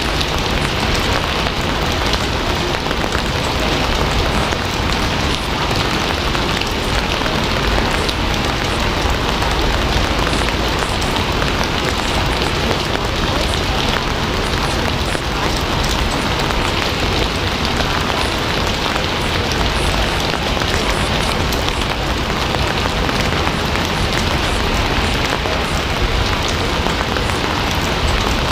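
Steady, heavy rain falling, a dense even hiss with scattered individual drops and a low rumble underneath.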